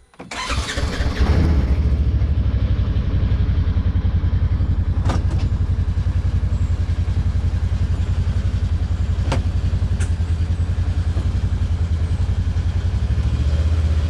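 Side-by-side utility vehicle's engine coming to life at the very start and rising to a steady run within about a second, then running with a low, even throb. A few short sharp clicks sound over it.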